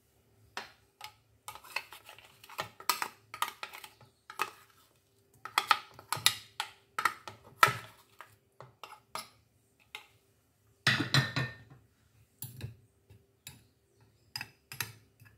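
A spoon clinking and scraping against the plastic bowl of a food processor, with the rattle of its lid being handled: irregular knocks and scrapes, the longest and loudest a scrape about eleven seconds in.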